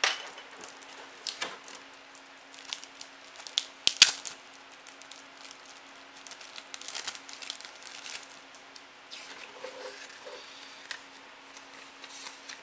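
Clear plastic packaging and a folded paper instruction sheet being handled: scattered crinkles, crackles and rustles, with the loudest snaps right at the start and about four seconds in.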